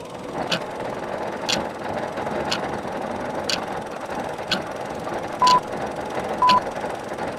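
Countdown sound effect: a steady mechanical clockwork whirr of turning gears, with a sharp tick once a second. About five and a half seconds in, a short pure beep joins each tick, three times in all, louder than anything else.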